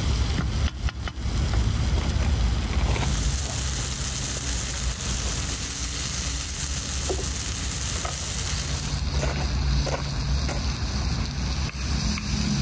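Diced bell peppers and red onions sizzling in a large black pan over a wood fire, stirred with a wooden spatula that scrapes and taps against the pan now and then. A low steady rumble runs underneath.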